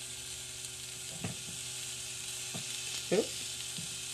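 Vegetables sizzling steadily on the hot non-stick plate of a Starfrit Rock electric indoor grill set on high, with a few soft taps as zucchini slices are laid on the plate; the loudest tap comes about three seconds in.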